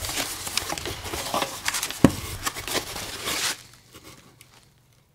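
Cardboard shipping box being opened and handled by hand: packing paper crinkling and cardboard flaps rustling, with many sharp clicks and one louder knock about two seconds in. The handling stops about three and a half seconds in.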